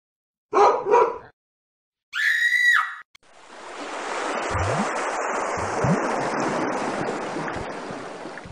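Edited horror sound effects: about half a second in, two short loud bursts, then a brief high scream. After that a long noisy rush swells up and slowly fades, with a few low thuds inside it. Each sound starts and stops abruptly against dead silence.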